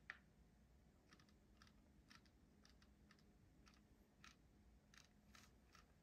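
Near silence with about a dozen faint, irregular small clicks and ticks.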